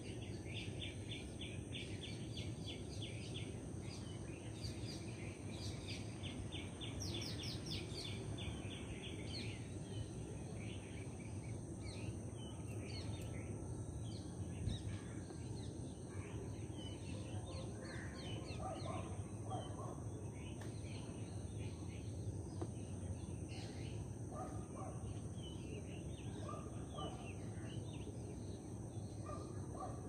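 Background birdsong: small birds chirping, with fast trills of repeated chirps in the first few seconds and again around seven to eight seconds in, then scattered chirps. Under it runs a steady low outdoor rumble and a steady high-pitched hum.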